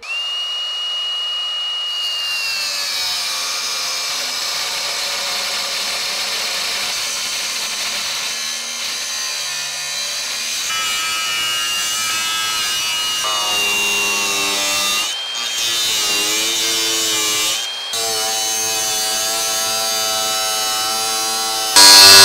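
Power tool cutting through the Jeep's sheet-metal body, its motor giving a steady whine that shifts in pitch as it loads up. It eases off briefly twice, and a much louder, harsher cutting noise comes in near the end.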